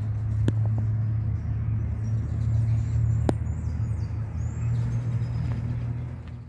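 A steady low rumble with faint bird chirps above it.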